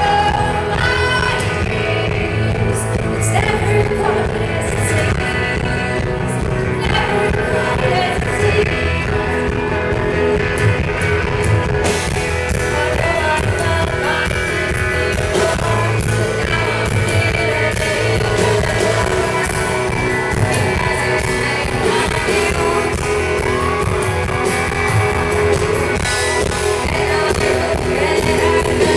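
Live rock band playing, with electric guitar and a steady beat under a woman singing the lead vocal, heard from within the audience.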